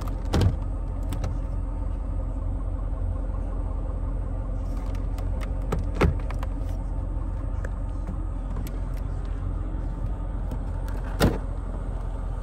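2003 Mercedes-Benz SL500's V8 idling steadily, with three sharp knocks from the trunk's fittings being handled: one near the start, one midway and a loud one near the end as the trunk lid is shut.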